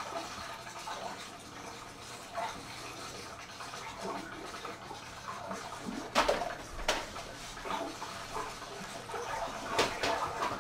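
Irregular scraping and rustling noises, with a sharp knock about six seconds in, another just after, and a third near the end.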